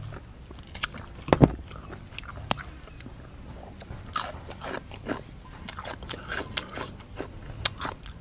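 Close-up crunching and chewing of a raw green chili: crisp bites and many small wet crackles. A loud crack comes about a second and a half in.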